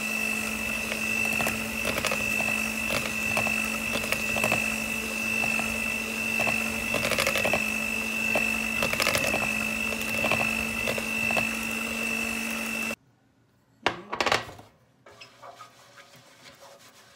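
Electric kitchen mixer running at a steady speed with a steady whine, its beater churning thick cake batter in a bowl, with light ticks throughout. It stops abruptly about two-thirds of the way in, followed by a brief knock.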